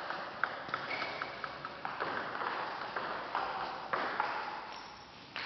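Table tennis ball clicks: a run of quickly shortening bounces early on, then the ball struck back and forth by rubber-faced paddles and bouncing on the table during a rally. Each click echoes in a large sports hall.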